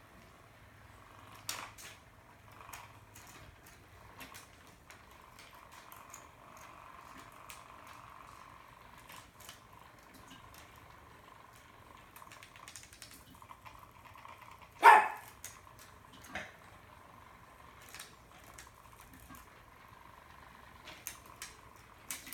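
Battery-powered spinner cat toy whirring steadily, with scattered clicks and taps on a wooden floor. About two-thirds of the way through, one short loud animal cry stands out above everything else.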